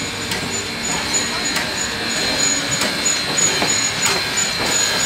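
Queensland Rail PB15 class 4-6-0 steam locomotive hissing steam, with a sharp click roughly every second. A high, pulsing chirp about three times a second runs through it.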